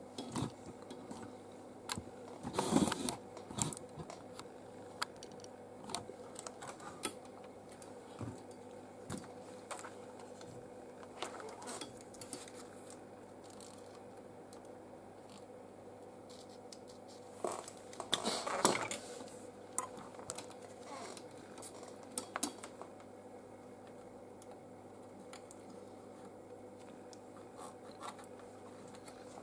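Small clicks, taps and scrapes of hand tools and fingers working on a laptop motherboard, with two short, busier spells of scraping about three seconds in and just past the middle, over a faint steady hum.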